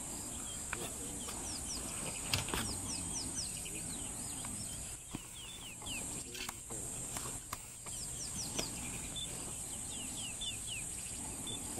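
Bush ambience of a steady high insect buzz and a bird calling in repeated series of quick falling notes, with scattered sharp cracks and low grunting sounds from two spotted hyenas tearing into a fresh carcass.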